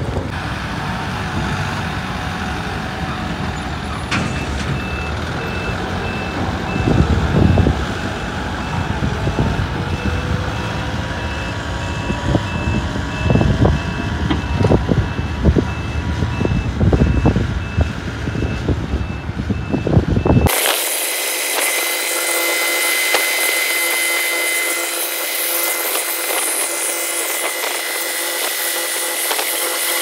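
Diesel engine of a Cat pneumatic-tyre roller compactor running, with a reversing alarm beeping at an even pace from a few seconds in. About two-thirds through, the sound cuts abruptly to a thinner, steady machine whine with several held tones and no low rumble.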